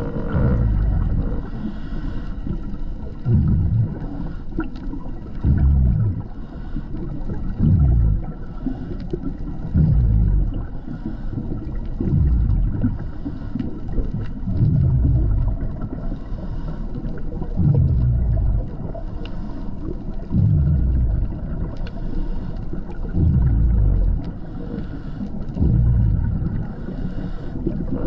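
Underwater sound of a scuba diver breathing through a regulator: a low bubbling rumble of exhaled air about every two and a half seconds, over a steady underwater background.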